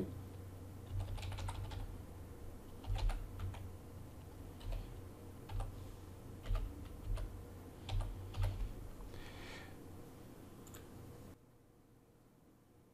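Keys tapped on a computer keyboard, irregularly, a few at a time, as a password and captcha are typed in; the typing stops about eleven seconds in.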